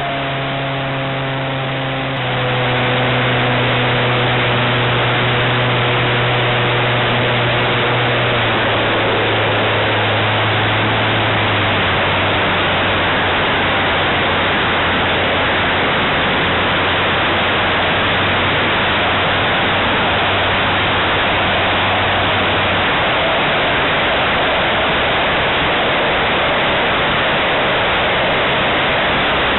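Model airplane engine heard from an onboard camera under a steady rush of wind on the microphone. The engine note drops in steps as it is throttled back, fading under the wind about three-quarters of the way through as the plane comes in on its landing approach.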